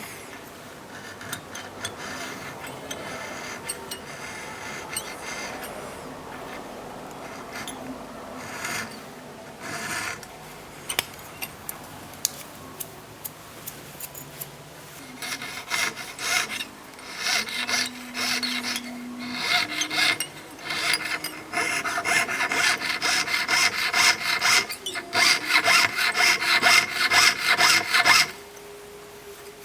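Jeweller's fine-bladed saw cutting openwork into a 1.5 mm sheet of 18K gold, in repeated back-and-forth strokes. The strokes grow louder and sharper about halfway through and stop shortly before the end.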